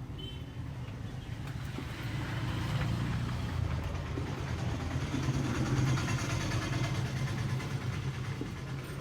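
A motor vehicle's engine running, swelling louder over a few seconds and then easing off.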